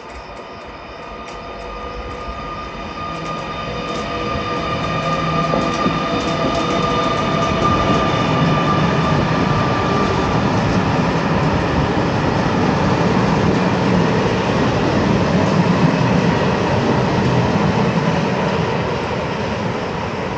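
Class 256 electric locomotive (S-256.016) hauling a container freight train through a station at speed. At first its steady high tones are heard, and these fade about halfway through. The rumble of the wagons' wheels on the rails builds to a loud, steady level and eases a little near the end.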